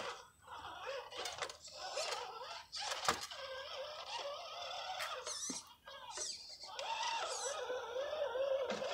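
Radio-controlled rock crawler's electric motor and gear drive whining, the pitch rising and falling with the throttle. Scattered clicks and knocks come from the tyres and chassis climbing over rocks, a sharp one about three seconds in.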